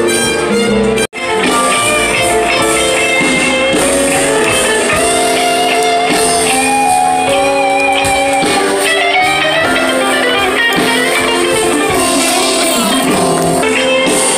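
Live band playing jazz, with electric guitar, horns and percussion over a bass line. The sound drops out abruptly for a moment about a second in, then the music carries on.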